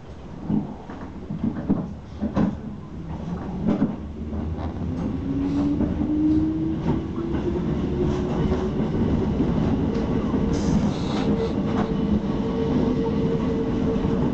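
Hakone Tozan Railway electric train pulling away from a station, heard from inside the car: a few knocks and clunks in the first few seconds, then the traction motor whine rising steadily in pitch as the train picks up speed, over the running noise of the wheels on the rails.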